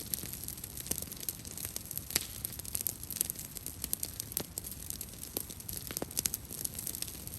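Brush pile of burning cedar branches crackling, with irregular sharp pops and snaps over a steady hiss.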